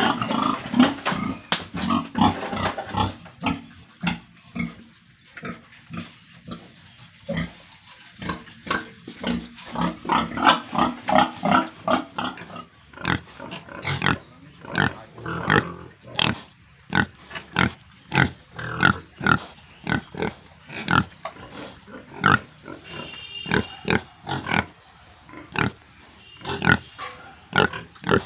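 Pigs grunting: a dense run of short, repeated grunts from several animals, a few each second.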